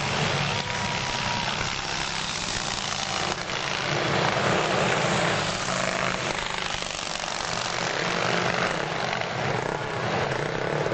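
Antique racing motorcycles' engines running on the track, a steady loud engine din with mild swells as the bikes go around.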